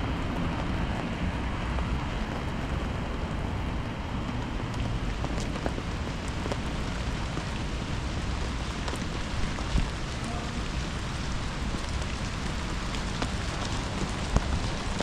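Steady rain falling, with scattered sharp drop hits over an even hiss.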